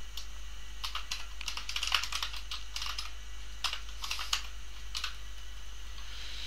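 Computer keyboard being typed on: quick key clicks in short irregular runs, over a steady low hum.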